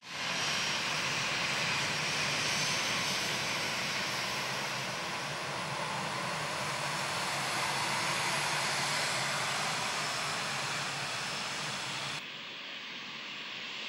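Jet airliner engines running steadily: a broad rush with a low hum and a thin high whine. About twelve seconds in the sound drops abruptly to a quieter, duller rush.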